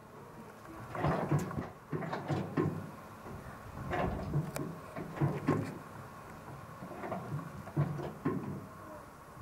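Small open-sided railway cars knocking and rattling irregularly as they run along the track, roughly one clunk a second over a low running rumble.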